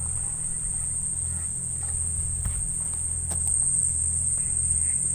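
Insects trilling in one continuous high-pitched tone over a steady low rumble, with a few faint clicks near the middle.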